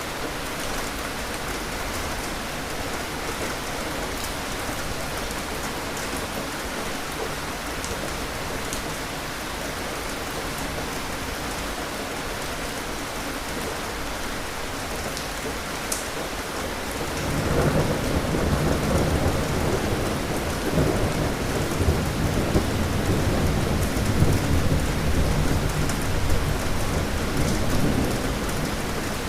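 Steady rain falling, with a long roll of thunder that comes in about two-thirds of the way through, rumbles for around ten seconds and fades near the end.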